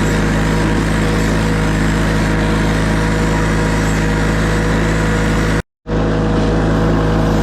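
Tractor engine running steadily. The sound cuts out completely for a moment about five and a half seconds in.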